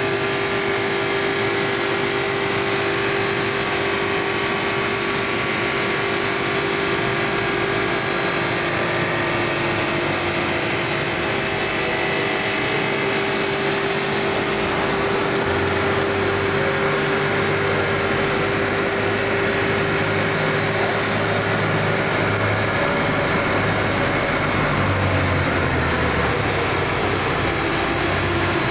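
FRT-600 bridge saw's diamond blade cutting through a stone slab: a continuous grinding with a steady motor tone under it. A lower rumble joins about halfway through.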